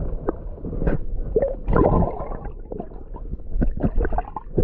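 Water gurgling and bubbling around an action camera held under the river's surface, heard muffled, with many short knocks and clicks as the camera and the hand holding the bass move in the water.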